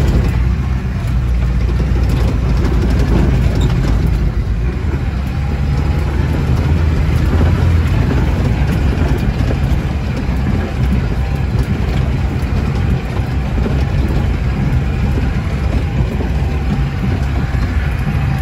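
Car engine running under load and tyres rolling over a rough dirt road, heard from inside the cabin as a steady low rumble with road noise.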